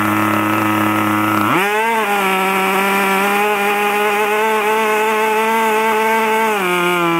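Super Tigre G-51 two-stroke glow engine of an RC model plane running at low throttle, then revved up to a high, steady whine about a second and a half in, held for about five seconds, and throttled back down near the end.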